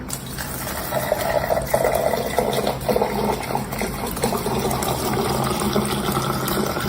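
Steady rush of running water, like a tap running, with a low hum underneath.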